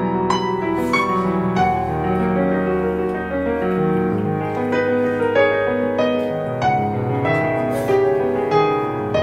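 Background music led by a piano, over a low held bass note that changes every few seconds.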